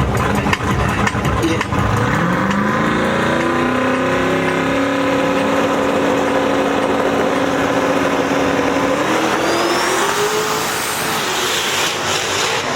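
Drag race car engine accelerating hard down the strip: its note climbs about two seconds in, holds at a steady pitch, then climbs again near the end.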